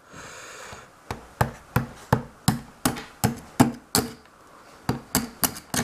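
A knife point tapping an eggshell again and again, about three sharp taps a second with a short pause past the middle, chipping a hole in the top of the egg.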